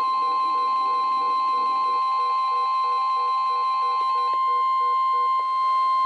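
NOAA Weather Radio's 1050 Hz warning alarm tone, one steady tone that marks a warning about to be read. Weather radio receivers beep over it in a pulsing pattern, and the beeps drop out one after another partway through.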